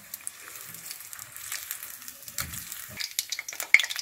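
Fish pieces frying in hot oil in a saucepan: a steady sizzle with scattered crackles that grow sharper and more frequent near the end.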